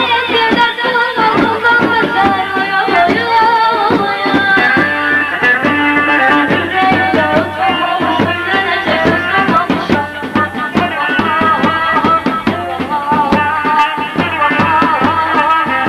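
Turkish village halay dance music: a wavering, ornamented melody line over fast, steady drum beats.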